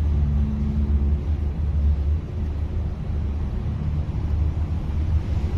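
Car engine idling: a steady low hum.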